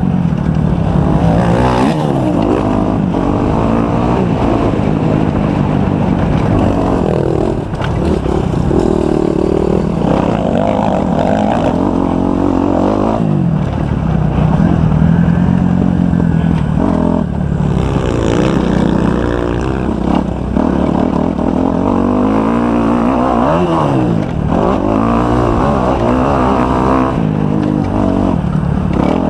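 Kawasaki 250 motocross bike's engine being ridden hard, revving up and dropping back over and over, its pitch climbing and falling every few seconds.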